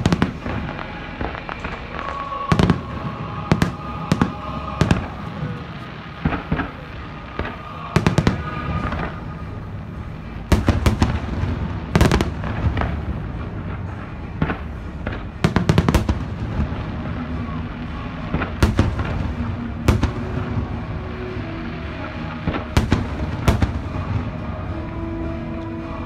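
Aerial fireworks show: repeated sharp bangs of bursting shells, some in quick volleys, over music playing underneath.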